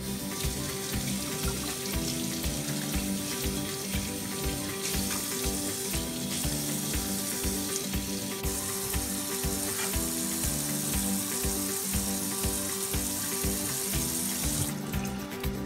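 Kitchen tap running into a stainless steel sink as raw chicken pieces are rinsed under the stream, a steady hiss of water that stops near the end. Background music with a steady beat plays throughout.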